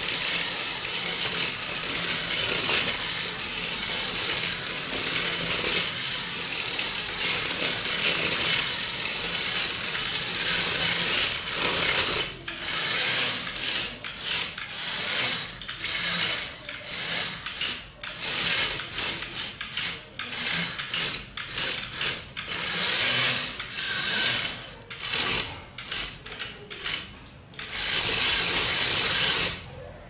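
Geared electric drive motors of a small homemade remote-control car running, its wheels rolling on a tiled floor. The motors run steadily at first, then from a little under halfway start and stop in many short spurts.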